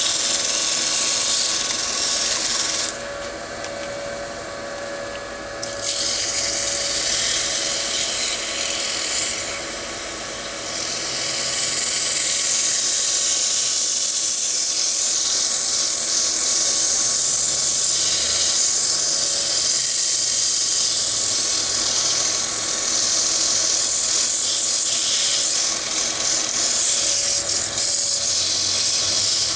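Sandpaper held against a wooden bowl spinning on a wood lathe: a steady, loud rushing hiss of abrasive on wood over the lathe motor's faint hum. The hiss eases off twice, briefly about three seconds in and again around ten seconds in, as the paper is lifted or shifted.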